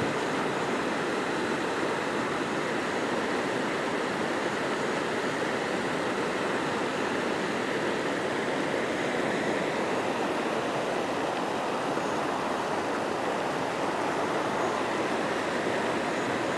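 Shallow rocky river rushing steadily over stones and small rapids, an even, unbroken water noise.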